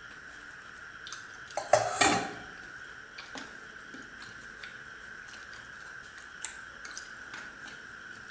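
Stainless steel tableware clattering: a loud metallic clatter of plates and bowls being handled about two seconds in, then a few light clicks and taps. A steady faint high hum runs underneath.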